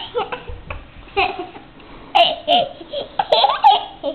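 Toddler girl laughing in several short, high-pitched bursts, with some babbling.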